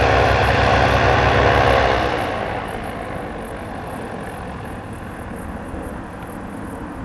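Blimp's propeller engines running, with an even pulsing beat. The engine sound drops away about two seconds in, leaving a quieter steady background noise.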